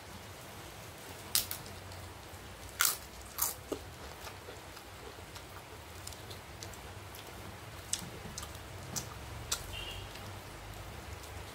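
Close-up eating sounds: fingers mixing rice and dal on a steel plate and chewing, with soft wet squishing and a scatter of sharp clicks and crunches, the loudest about one and a half, three and three and a half seconds in.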